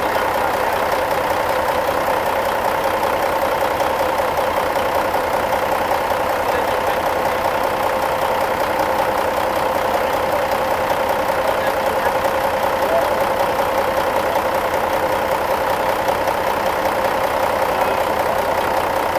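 An engine running steadily at idle, an even drone with no change in speed.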